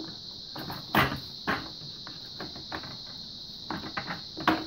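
Plastic knocks and clacks of a mini shop vac's filter-covered motor head being fitted back onto its canister. The loudest knock comes about a second in, another half a second later, and a quick cluster near the end.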